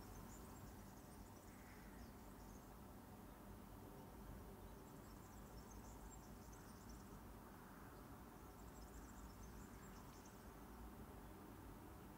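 Near silence: a low, steady room hum, with faint high-pitched chirping in three short spells.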